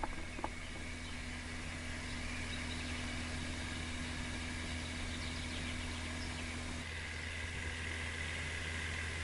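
An engine running steadily with a low, even drone. About seven seconds in, its mid hum drops away and a higher steady whine comes in.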